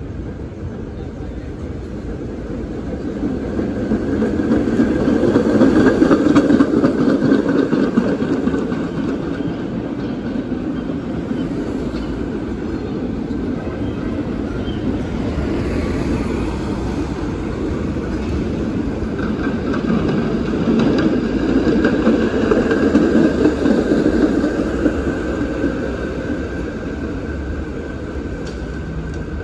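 Two vintage PCC streetcars passing on their rails, one after the other: the rumble of the wheels and traction motors swells as each goes by, about five seconds in and again past twenty seconds, with a faint steady whine.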